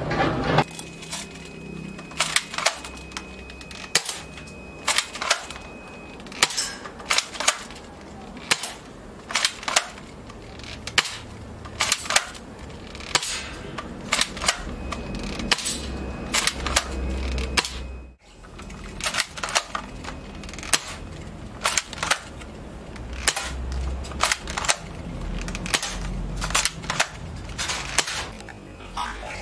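Spring-powered airsoft rifle (an SVT-40 replica built on a Crosman M47) being fired over and over: sharp snapping shots about once a second, some in quick pairs, with a short break partway through.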